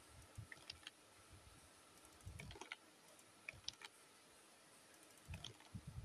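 Near silence with faint, irregular clicks and a few soft low thumps.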